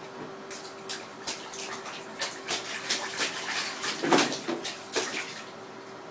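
A baby slapping and splashing bathwater with its hands: a quick, irregular run of splashes, the biggest one about four seconds in, dying away about five seconds in.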